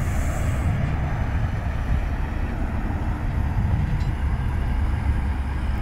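Two Bell Boeing V-22 Ospreys flying at a distance, their proprotors and engines making a steady low rumble.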